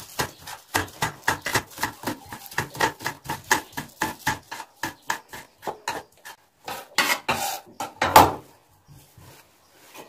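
Small kitchen knife finely chopping spring onion greens directly on a stone countertop: quick, even knocks of the blade, about four or five a second. The chopping stops after about six seconds; then comes a scraping as the greens are gathered up, and a single louder clatter about eight seconds in.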